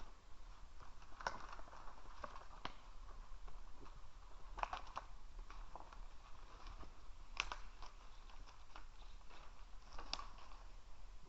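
An animal chewing: faint, irregular crunches and clicks, a few a second, over a low steady hum.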